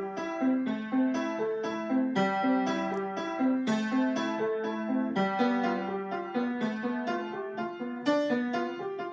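Solo piano playing a bell-like piece: a low note keeps sounding under a rocking pattern of higher notes, with a fresh, stronger chord struck every second or two.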